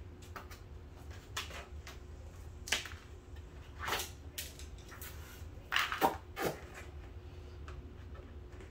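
Irregular knocks, taps and scrapes from black plastic edging strip and hand tools being handled on a cardboard-covered floor, the loudest being two sharp knocks about six seconds in. A steady low hum runs underneath.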